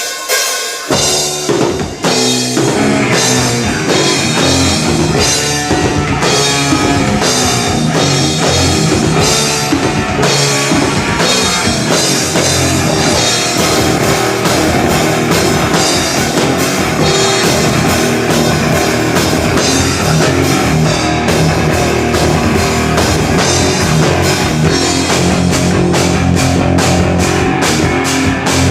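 Live rock band playing a song with drum kit, bass and electric guitar: a few drum hits open it, then the full band plays from about two seconds in.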